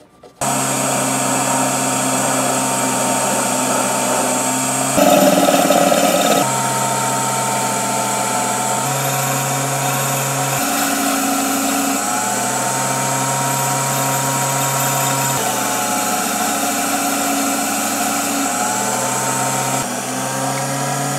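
EMCO Unimat SL lathe running steadily on its small 90-watt motor and belt-and-pulley drive while facing a brass workpiece, a steady hum whose pitch steps up and down a few times. About five seconds in there is a louder, rougher stretch lasting over a second, likely the tool cutting the brass.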